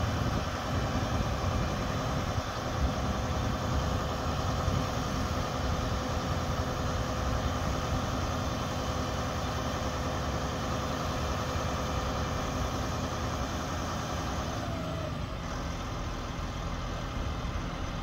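Diesel engine of a boom crane truck running steadily as it powers the crane holding a roof truss.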